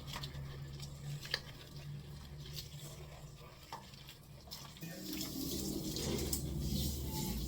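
Water running and splashing as a dog is rinsed during a bath, with a few small knocks and a steady low hum underneath; the water grows louder about five seconds in.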